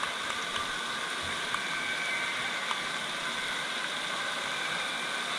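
Steady ambient din of an indoor water park: running, splashing water filling an echoing hall.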